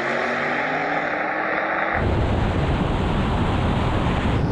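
A drone's propellers whir steadily for about two seconds. The sound then cuts abruptly to a deep, steady rumble of engine and wind noise from an SUV waiting on the drag-strip start line.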